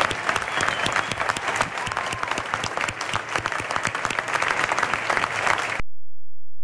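Audience applauding: a dense patter of many hands clapping. It cuts off suddenly near the end and is followed by a steady low hum.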